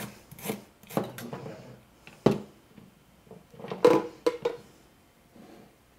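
Kitchen knife cutting fresh ginger root on a cutting board: a few separate knocks and clicks of the blade, the sharpest about two seconds in, then a louder cluster of clatters about four seconds in as the knife is put down.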